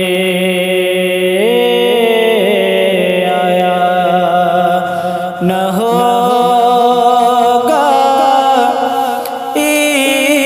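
A solo male voice singing an Urdu devotional manqabat in long, drawn-out, ornamented notes whose pitch steps up and down, with brief breath breaks about five and a half and nine and a half seconds in.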